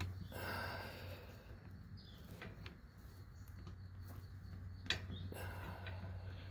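Pliers crimping blue butt-splice connectors onto electric brake wires: a short scrape about half a second in, then a sharp click just before five seconds in followed by more scraping.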